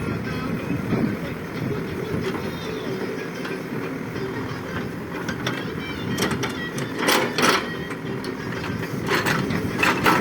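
ACE backhoe loader's diesel engine running steadily, with a few short, sharp noises in the second half.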